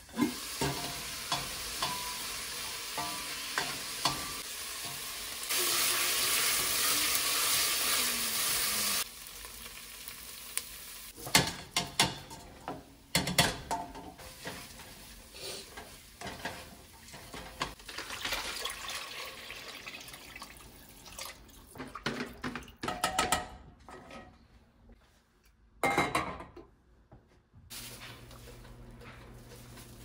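Home cooking sounds: food sizzling in a pan while a utensil stirs and clicks against the cookware. The sizzle grows louder for a few seconds about five seconds in, then gives way to scattered sharp clicks and knocks.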